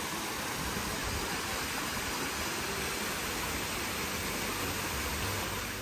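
Small waterfall of hot spring water splashing down over rocks, a steady rush of falling water.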